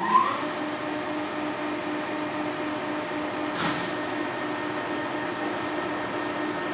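Kingston HR3000 gap-bed lathe running, its geared headstock whine levelling off at a steady pitch just after spinning up. A sharp mechanical clunk comes about three and a half seconds in, and another at the very end.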